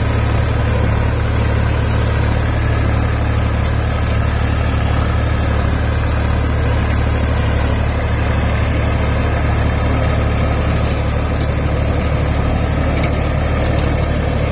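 Massey Ferguson 254 Dynasmart tractor's diesel engine running steadily with a deep, even drone.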